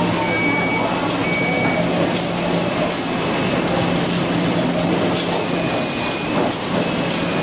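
Automatic hamburger shrink-wrap packing line running: steady mechanical clatter from the belt infeed conveyor and wrapping machine over a steady low hum.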